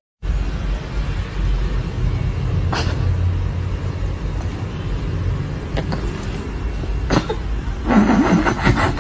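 Cat purring right against the microphone: a steady low rumble, with a few soft clicks and a short, higher pitched sound near the end.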